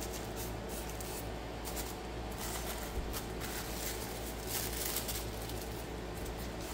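Rustling and handling of packaging while small model parts are unwrapped, with a sharp click about three seconds in, over a steady low hum.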